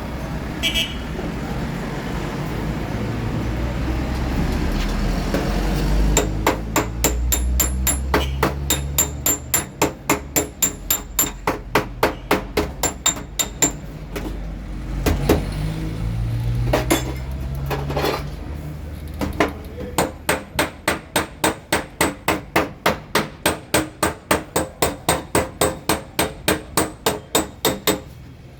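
A low steady rumble, then quick, even hammer taps on a car fender's sheet metal, about three a second, in two long runs with a short break around the middle: tapping the panel back into shape in a paintless repair.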